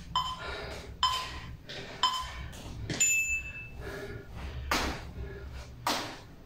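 Sneakers landing on a tile floor with each plié squat hop, about once a second; the first few landings carry a brief ping.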